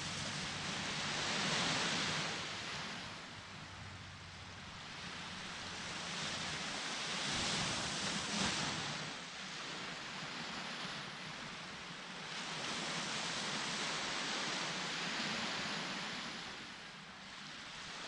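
Ocean waves washing onto a beach: a steady hiss of surf that swells and eases three times, about every six seconds.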